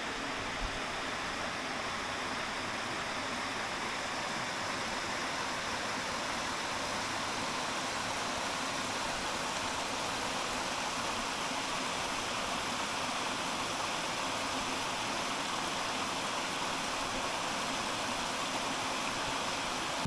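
Steady rush of falling water from a waterfall, an even hissing wash with little low rumble that holds unchanged throughout.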